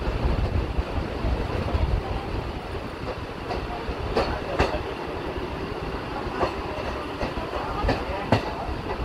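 Train moving on the rails: a low rumble, then from about halfway on, sharp irregular clacks as the wheels pass over rail joints.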